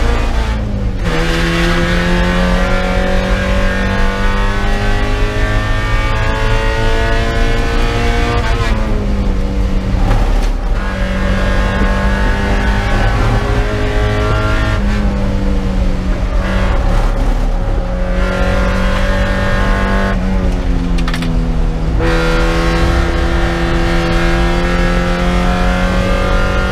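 Spec Miata's four-cylinder engine at race pace, heard from inside the cockpit: the revs climb under acceleration and drop abruptly several times at gear changes and braking, with short stretches of rougher engine and road noise between pulls.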